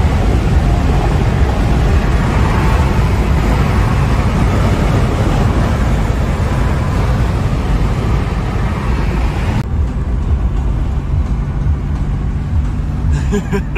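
Car cruising at highway speed, heard from inside the cabin: a loud, steady rush of wind and tyre noise over a low engine and road rumble. About ten seconds in the hiss suddenly drops away, leaving a duller, quieter rumble.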